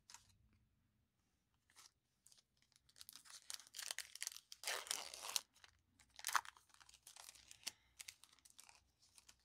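Foil wrapper of a Panini Prizm football card pack being torn open and crinkled by hand, starting about three seconds in, with the biggest rips near the middle.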